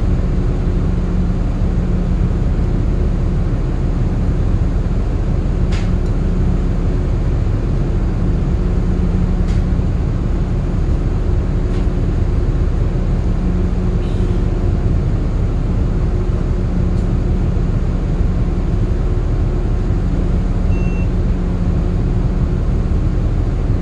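Steady low drone of ship's machinery running, an even hum that holds without change.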